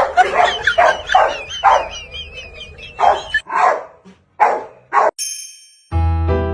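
A dog barking and yipping in short repeated bursts, with a wavering whine over the first couple of seconds. A brief bright chime sounds about five seconds in, and piano music starts near the end.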